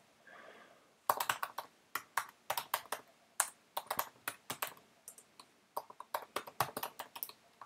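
Typing on a computer keyboard: a run of quick, uneven keystrokes that starts about a second in and stops shortly before the end.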